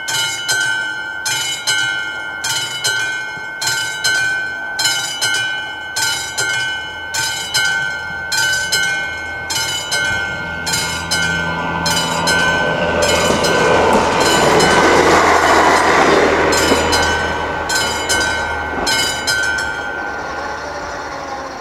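AŽD 71 level-crossing warning bell ringing at about two strokes a second while a passenger train passes over the crossing, its rumble and rail noise building to the loudest point about 15 seconds in and then fading. The bell stops about 20 seconds in.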